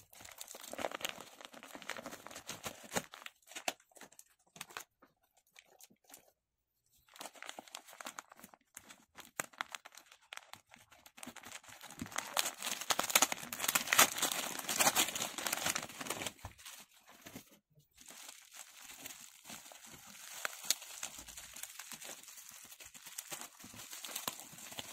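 Packaging being crinkled and torn open by hand: a metallic foil mailer, paper wrapping and plastic wrap, in irregular crackling handling noises. The crinkling is loudest and busiest about halfway through, with short pauses in between.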